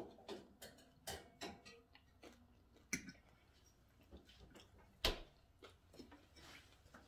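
A metal fork clicking and scraping against a plate as food is picked up, in a series of light taps, the sharpest clinks about three and five seconds in, with soft chewing between.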